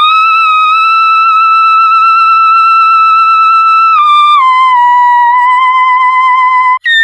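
A voice singing in the whistle register, the highest register of the voice. It sings a very high, pure note that slides up into pitch and holds. About four seconds in it steps down to a slightly lower note with a light vibrato. After a brief break near the end, a higher note begins.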